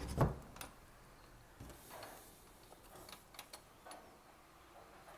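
Handling of an old pine cupboard: a dull wooden knock at the start as a cupboard door shuts, then a few light scattered clicks and handling noise.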